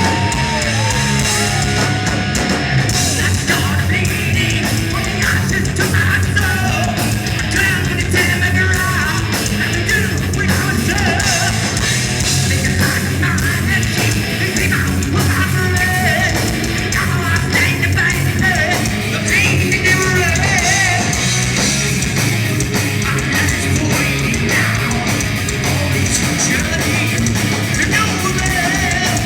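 Heavy metal band playing live at full volume: distorted electric guitars, bass and fast drums. A held guitar note bends down about a second in, and high yelled vocals run over the band.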